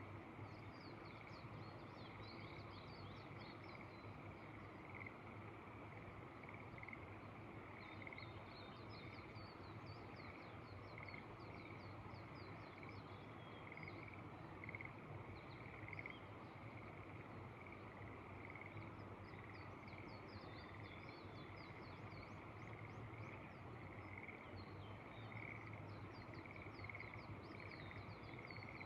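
Frogs calling in the rice terraces: a steady run of short repeated notes. Over them come four bursts of rapid, high chirping, with a faint even hiss underneath.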